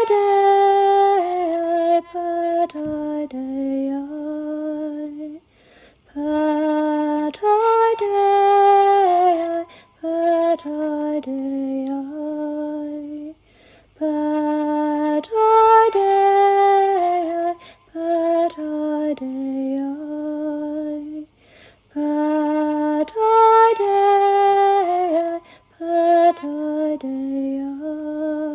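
A woman singing alone, slow and chant-like, a melodic phrase that recurs about every seven and a half seconds with short breaths between phrases.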